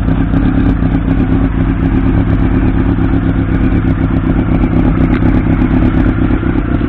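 1989 Honda CB-1's 400 cc inline-four engine idling steadily.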